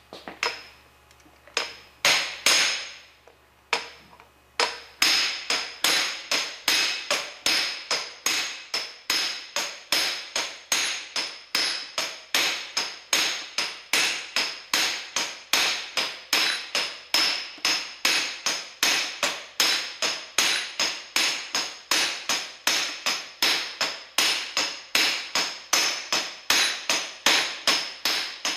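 Hammer blows on a steel pipe used as a bearing driver, tapping a warmed roller bearing down onto a Dodge NV4500 transmission's main shaft. There are a few separate blows in the first seconds, then a steady run of blows a little over two a second, each with a short metallic ring.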